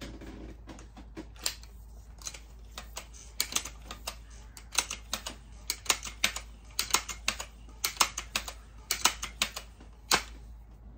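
A run of sharp clicks and clacks from handling the Seneca Dragonfly MK2 multi-pump air rifle's mechanism, bunched in clusters about a second apart from a few seconds in.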